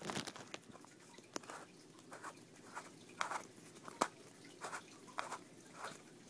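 Faint clicks and scrapes of hard plastic being handled as the cap is screwed back onto a Splatoon toy water gun's water tank, with a couple of sharper clicks.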